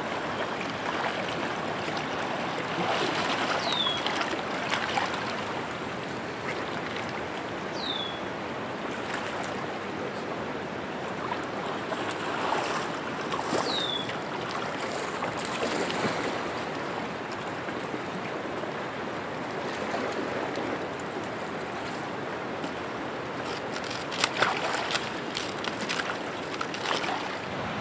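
Steady rush of a fast-flowing river. A short, high falling note sounds three times, several seconds apart, and a brief cluster of sharp clicks comes near the end.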